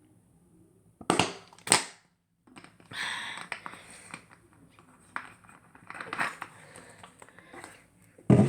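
Plastic water bottle crackling as it is handled and drunk from. Two loud, sharp crackles come about a second in, then quieter crinkling, and another loud crackle near the end.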